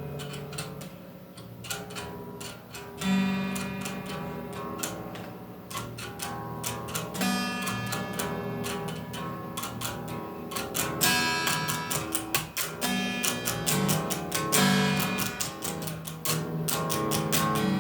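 Music: guitar strumming chords, with no singing.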